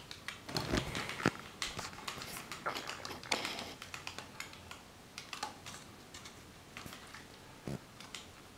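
Plastic drinking straws and a small plastic tub being handled and pressed together: scattered light clicks and rustles, busiest in the first few seconds, with one sharper tap near the end.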